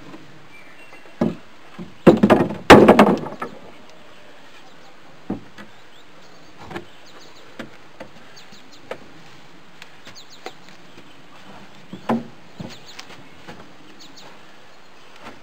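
Rough-cut wooden boards knocking and clattering as they are handled and set into a timber frame. A burst of heavy knocks comes about two to three and a half seconds in, followed by scattered lighter taps and knocks.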